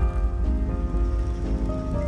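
Background music of held, gently changing notes, over a steady low rumble.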